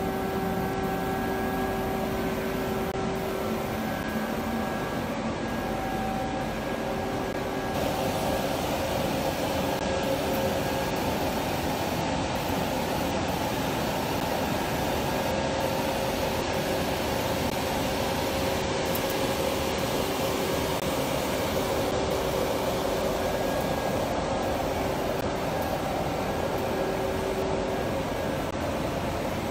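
Chamomile processing-line machinery running: conveyors, electric motors and a blower give a steady mechanical din with a hum that comes and goes. It grows a little louder and brighter about eight seconds in.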